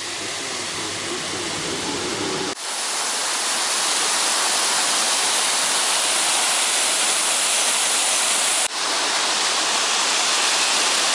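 Steady rush of falling water from a waterfall. It breaks off abruptly twice, about two and a half seconds and about nine seconds in, and after the first break the deep rumble underneath is gone.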